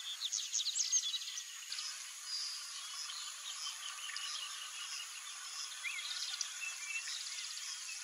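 Several birds chirping and giving short whistled calls over a rhythmic, buzzing insect trill. The calls are busiest in the first second.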